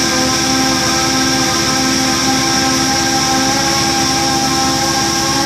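Line boring machine running, its boring bar turning and cutting through an engine block's bores: a steady mechanical whine made of several held tones over a high hiss, unchanging throughout.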